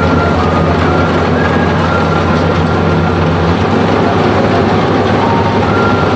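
Rice combine harvester's engine running steadily as the machine works, a loud continuous drone with no breaks.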